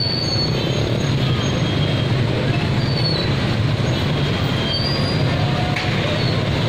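Train rolling past at a street crossing: a steady low rumble with a few brief high wheel squeals, mixed with the motorbike engines of the crowded street.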